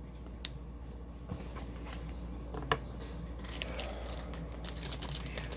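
Trading cards handled and slid against one another, with scattered light clicks and rustles over a steady low hum.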